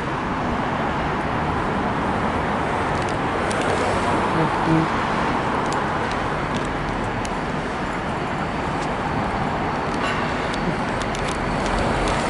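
Freight train hauled by two VL class diesel locomotives passing, a steady rolling noise with no horn sounding.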